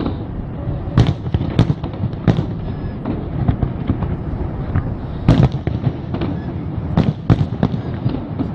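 Aerial firework shells bursting in a display: about six loud bangs, uneven in spacing, with fainter pops and crackles between them over a steady low rumble.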